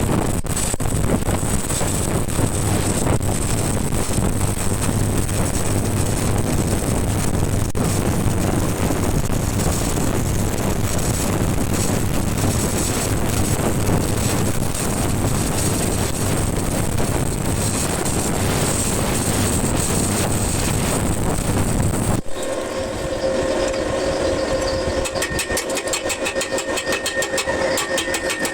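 Stick-welding arc on steel reinforcing bar, crackling and sizzling steadily over a low electrical hum. About three quarters of the way in it cuts off abruptly and a different steady sound with a few held tones and a fast even pulsing takes over.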